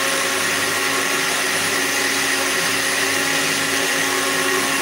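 Countertop blender running at one steady speed, blending diced watermelon and ginger with lemon juice and a little water into a drink.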